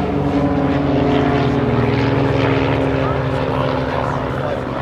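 Propeller drone of several Vans RV-8 aerobatic light aircraft with 180 hp piston engines flying in formation, a steady engine note whose pitch sinks slowly as they pass.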